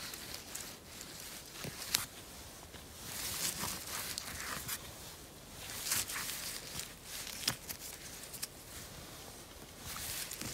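Gloved hands rustling through grass, moss and pine needles on the forest floor while picking mushrooms, in irregular bursts with a few sharp clicks.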